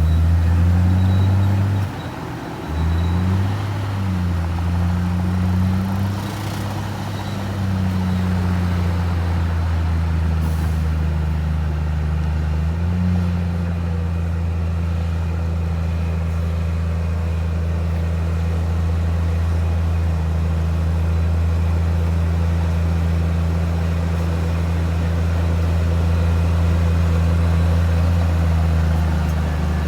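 Heavy diesel engine of earthmoving machinery running. Its pitch rises and dips a few times over the first dozen seconds, then holds steady.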